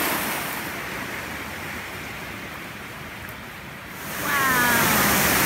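Steady rushing water of a small mountain stream cascading over mossy rocks, swelling again about four seconds in. A brief falling call sounds over it at that point.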